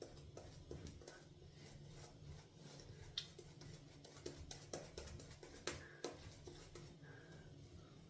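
Synthetic shaving brush swirling lather in a tub of tallow shaving soap: a faint, soft scratchy swishing with scattered light clicks where the brush knocks against the tub.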